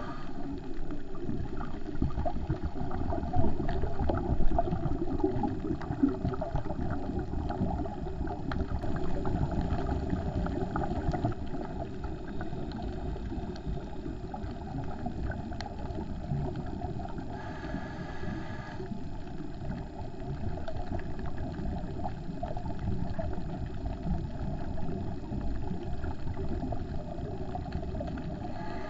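Muffled underwater noise picked up through a GoPro's waterproof housing: a steady low rumble with scattered crackling clicks, and a brief hum of several tones about two-thirds of the way through.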